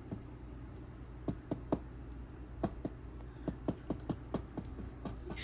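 A dozen or so light, irregular taps and clicks over a low, steady hum.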